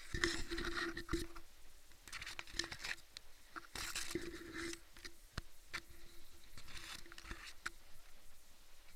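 Irregular bursts of rustling and patter, each about a second long, with scattered sharp clicks, from movement through wet sugarcane foliage.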